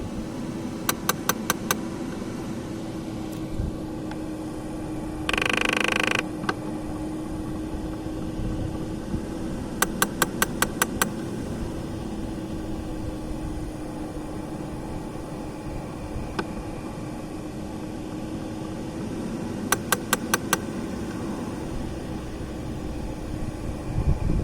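Audi A6 C5 Climatronic air flow flap positioning motor (V71) clicking: a quick run of about five sharp clicks, repeating roughly every nine seconds, over a steady hum. A brief louder tone sounds for under a second about five seconds in.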